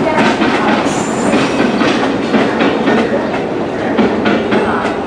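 Passenger train's wheels clattering over the rail joints as the coaches roll along, a dense run of irregular clicks over a steady rumble.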